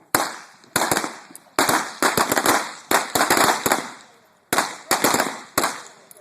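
Gunfight volley of blank gunshots from several guns: well over a dozen sharp cracks, some single and some in rapid overlapping flurries about two and three seconds in, each with a short echo.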